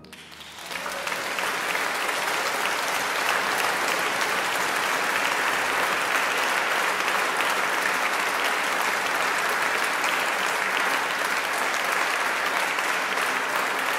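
Audience applauding, swelling in over the first second and then steady.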